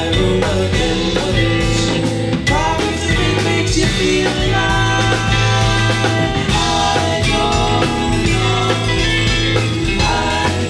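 Live band playing a song: drum kit and electric bass under guitar, with held melody notes over a steady bass line.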